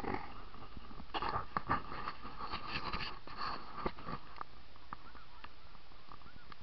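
Snow geese calling, short rising-and-falling honks, dense and overlapping in the first four seconds or so with knocks and rustling mixed in, then thinning to scattered single calls.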